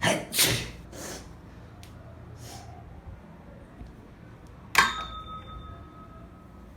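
A woman sneezing: a few sharp, breathy sniffs and inhales in the first second, then one sudden loud sneeze nearly five seconds in, after which a faint high tone lingers for about a second.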